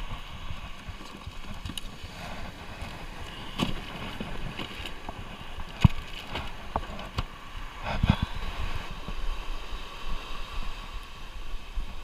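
Wind buffeting the microphone over the rush of surf, with a few sharp knocks and clicks of handling. The loudest knock comes about halfway through, and a double knock follows about two seconds later.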